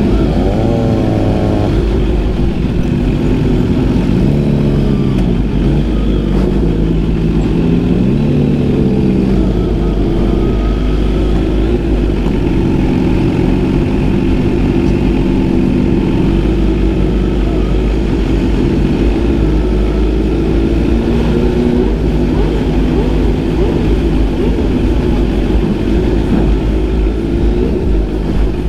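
Several motorcycle engines at low speed, the camera bike's supercharged Kawasaki Z H2 with its SC-Project exhaust among them, running with a steady low rumble while throttles are blipped, so the pitch rises and falls again and again.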